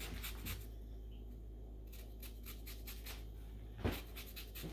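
A lemon being zested on a fine rasp grater: the rind drawn across the blades in runs of short, quick scratchy strokes.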